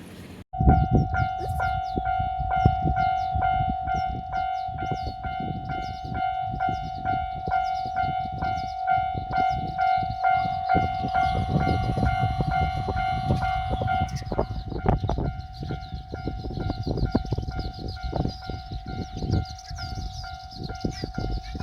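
Japanese railroad crossing bell ringing its repeating electronic 'kan-kan' tone, starting abruptly about half a second in. Under it a train runs past, rumbling, with its wheels clicking over the rail joints.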